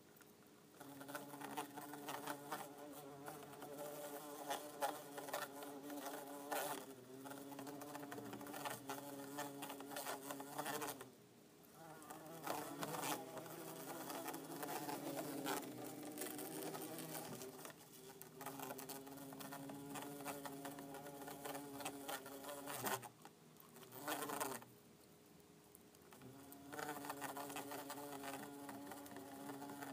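Bumblebees buzzing in a tank, a low pitched drone that runs in bouts of several seconds and stops briefly a few times, with scattered light ticks.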